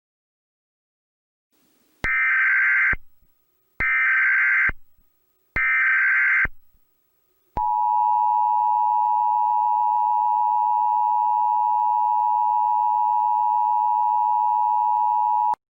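Emergency Alert System tones: three short bursts of SAME digital header data, about a second apart, then the steady two-tone attention signal (853 and 960 Hz) held for about eight seconds and cut off sharply.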